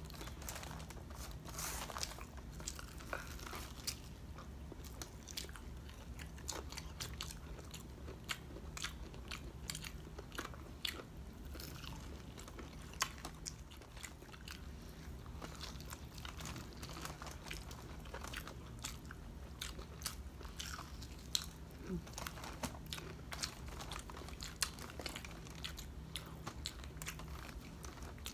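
Close-miked eating: repeated crisp crunches of bites into crunchy breaded fried pork chop, with chewing between them.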